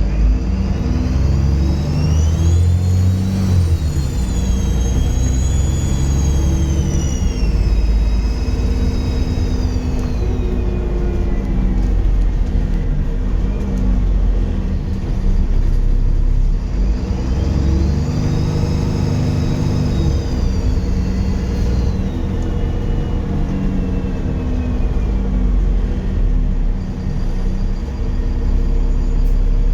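Dennis Trident 2 double-decker bus's diesel engine pulling hard, with a loud, high turbo whistle that rises, holds and falls away twice as the bus accelerates.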